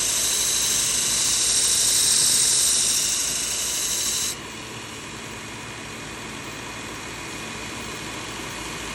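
Electric belt sharpener grinding a carbon-steel knife blade on a coarse 120-grit belt: a steady, loud, hissing grind for about four seconds, throwing sparks. The grind then stops suddenly as the blade comes off, and the belt keeps running on its own, quieter.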